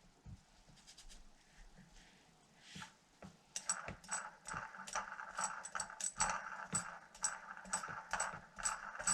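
Quiet at first; then, from about a third of the way in, a run of small, irregular metallic clicks and rattles, a few per second, from hands-on work on a chainsaw.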